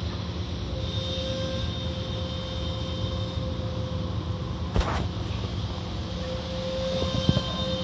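Automatic tunnel car wash heard from inside the car: a steady rumble of the wash machinery and water, with a steady whine that comes and goes. A sharp thump about five seconds in and a couple of knocks near the end.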